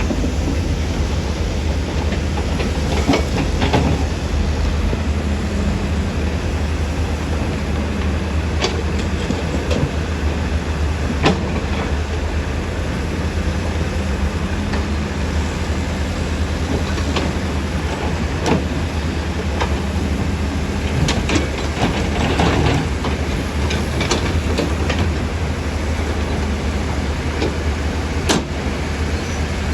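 Heavy earthmoving machinery's diesel engine running steadily with a deep rumble, with scattered sharp metallic clanks and knocks.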